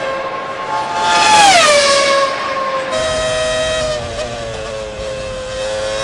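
Formula One car's Honda V10 engine running at high revs with a high-pitched note. The note falls sharply in pitch as the car passes, loudest about a second and a half in, then holds steady and sinks slowly.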